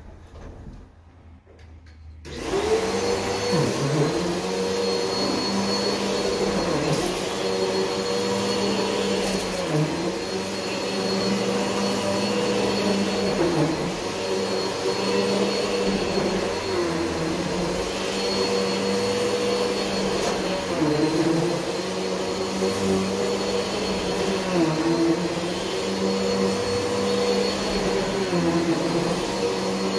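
Bissell PowerGlide Ultra upright vacuum cleaner switched on about two seconds in, then running steadily while vacuuming carpet, its motor pitch dipping briefly every few seconds.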